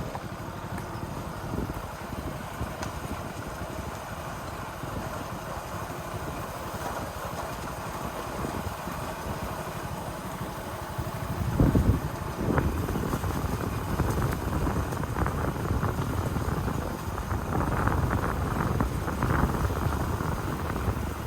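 Small Hero motorcycle engine running as the bike is ridden off-road. Just before the midpoint there is a loud thump, and after it the engine and rattle are louder.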